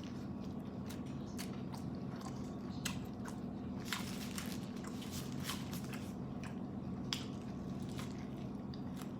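Close-miked chewing and biting of a sushi burrito: many small wet mouth clicks and smacks scattered through, over a steady low hum.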